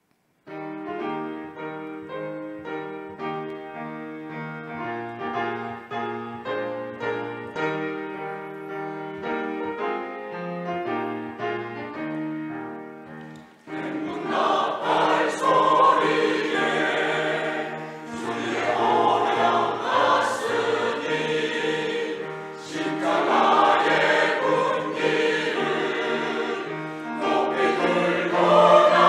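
Church choir anthem: a piano introduction of separate notes for about the first thirteen seconds, then the choir comes in singing in full harmony over the piano accompaniment.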